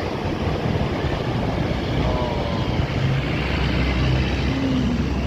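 Road traffic with a large intercity bus passing close by: steady engine rumble and tyre noise that swells a little in the second half.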